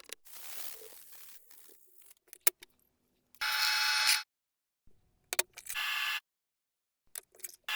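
Hand scraping on rusty metal, a sharp click, then three short bursts of a small power tool's motor whine, each cut off abruptly by an edit.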